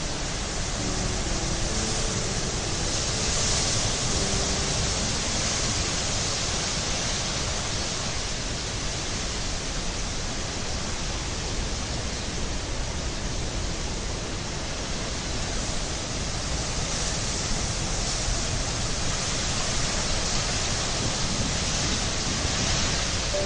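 Steady rushing water noise, a nature-sound bed like surf or a waterfall, swelling gently a couple of times. A few soft music notes fade out in the first two seconds.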